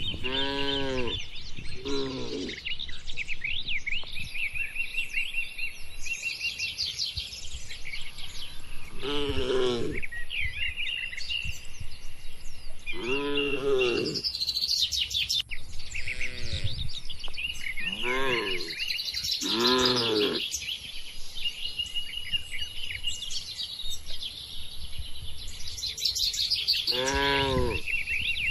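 Small birds chirping and twittering constantly in the cattle barn, with cattle lowing in short calls, about eight of them, each about a second long. A thin steady high tone runs from about four seconds in.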